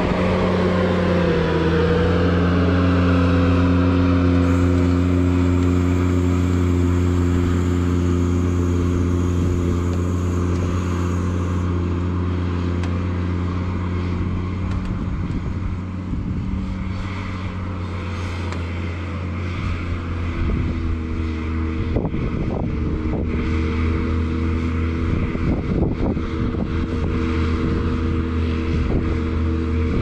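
Ventrac 4500Z compact tractor's diesel engine running steadily under a KX480 snowblower attachment, its note dipping slightly about a second in. From about twenty seconds in, scattered knocks and clatter sound over the engine.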